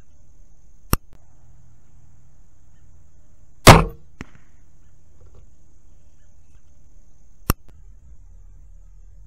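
Barnett Recruit crossbow firing: one loud, sharp crack with a short ring as the string is released, then about half a second later a faint knock of the bolt striking the target. A single sharp click comes a few seconds before the shot, and another a few seconds after it.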